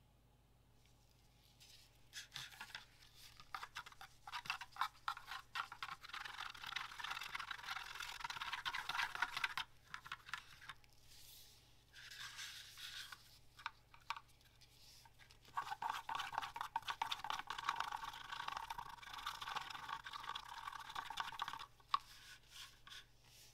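Wooden craft stick stirring epoxy resin in a plastic cup, scraping the sides and bottom in quick repeated strokes. Two spells of stirring with a short pause between, and a single sharp click near the end.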